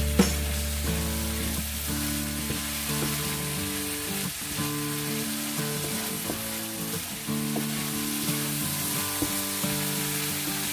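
Tuna and scrambled egg sizzling in a nonstick frying pan while a wooden spatula stirs and scrapes it, with small scraping ticks here and there. Soft background music with held notes plays underneath.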